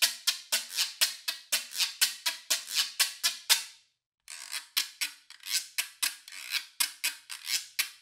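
Güiro scraped in quick short strokes, an even rasping rhythm of about five strokes a second. The first is a Meinl Turbo Güiro of high-strength plastic played with a scraper. After a brief break about halfway, a second, egg-shaped güiro is scraped with a thin stick.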